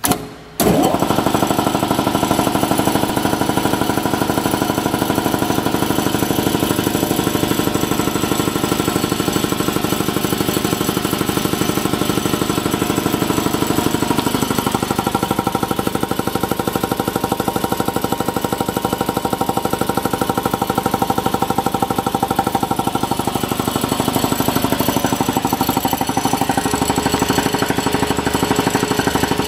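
Speedaire 1WD55 5 HP three-phase electric air compressor switching on with a short burst and starting within the first second, then running steadily, its piston pump beating with a fast, even pulse as it pumps air into the vertical tank.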